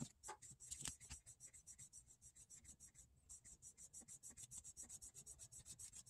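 Faint rubbing and light clicks of a small hand air pump being worked, pushing air through a smoke jar into the engine's intake.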